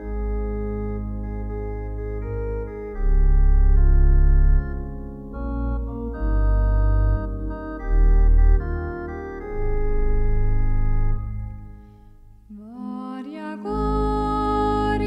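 Church organ playing a hymn introduction: held chords over deep pedal bass notes that swell louder several times. Near the end a woman's voice comes in singing over the organ.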